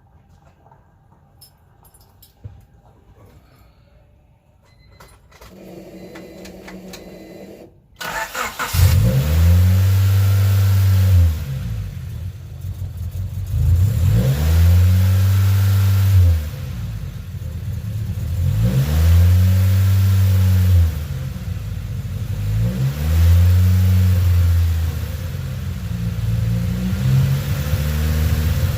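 Turbocharged Honda Civic D15B engine starting: a short steady hum, then the engine catches about eight seconds in. Its revs then climb, hold and drop back about four times, once every four to five seconds, just after a new idle air control valve has been fitted.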